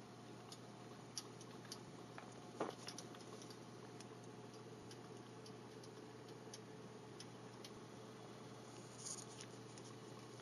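Markel Neo-Glo electric space heater's fan running faintly and steadily on the medium setting, with scattered light ticks.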